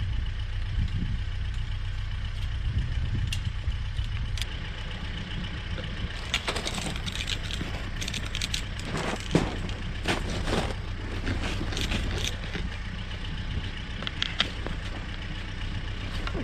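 Farm tractor engine idling steadily at low pitch. Over it come scattered clicks, clinks and rustles of hands working on the fence wire and clips, busiest in the middle.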